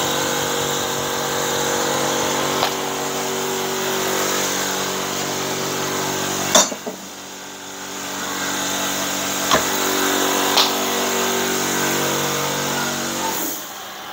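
Homemade Lamborghini replica's motor running steadily as the car tries to climb back up the kerb. It cuts off with a sharp knock about six and a half seconds in, runs again, and stops shortly before the end, with a few light clicks along the way.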